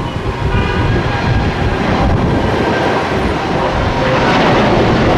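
Twin jet engines of a Boeing 787 airliner at takeoff power as it lifts off and climbs away: a steady rushing roar with faint whining tones, growing louder about four seconds in.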